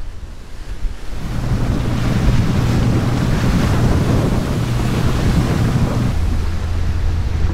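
Small boat under way: a steady engine hum under the rush of water and wind on the microphone, the engine note dropping lower about six seconds in.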